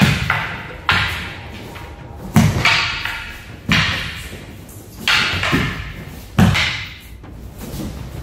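Wooden practice swords (bokken) striking each other in a paired sword kata: about seven sharp clacks at irregular intervals, each echoing in the hall.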